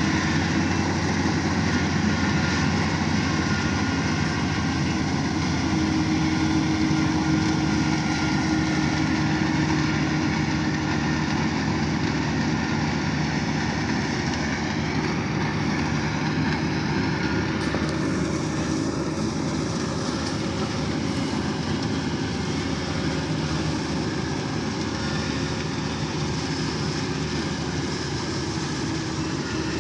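Kubota DC-35 combine harvester's diesel engine running steadily at a constant speed, with the dense whir of its working machinery over it.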